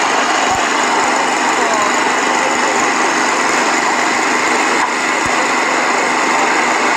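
Excavator's diesel engine running steadily close by: a loud, even machine noise with no change in pace.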